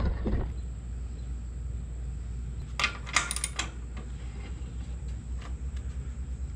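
Metal clinks as a wrench is fitted onto a zero-turn mower deck's height-adjustment nut, about three seconds in, then lighter clicking as the nut is turned to raise or lower the deck.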